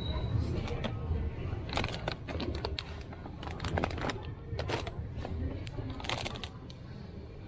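Plastic snack-chip bags crinkling as they are picked off the shelf and handled: a string of sharp crackles through the middle, over a steady low background rumble.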